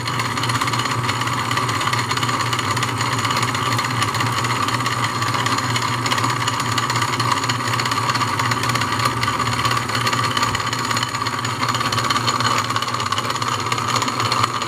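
1920s Wade bench lathe running steadily under belt drive from its electric motor.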